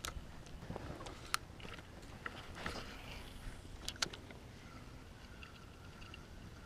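A few scattered sharp clicks and light knocks from handling rod, reel and tackle in a small boat, over low background rumble; a faint steady wavering tone comes in about five seconds in.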